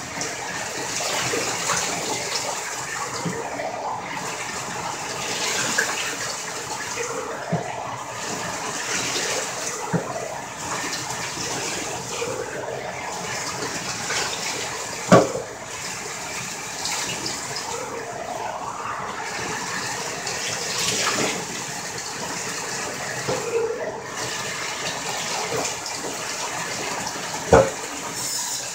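Water running from the tap into a bathtub as it fills, a steady rushing splash, with two sharp knocks, one about halfway through and one near the end.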